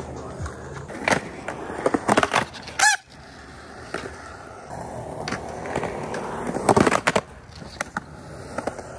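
Skateboard rolling over rough concrete, wheels running with a steady grinding hiss, broken by several sharp clacks and knocks of the board and trucks as it rides at a rock-set bank; the loudest knocks come about seven seconds in.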